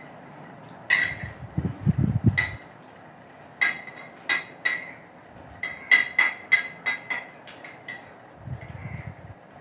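Metal spoons clinking against a steel plate as food is scooped. There are a dozen or so short ringing clinks, scattered at first and then coming quickly one after another in the second half.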